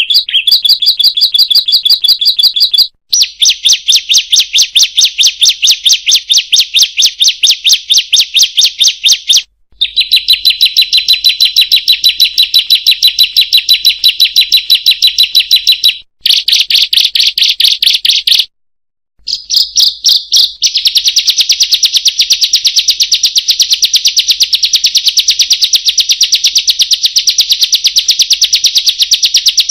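Ciblek (bar-winged prinia) song: a fast, rapidly repeated high chattering trill, sung in long bouts broken by a few short pauses.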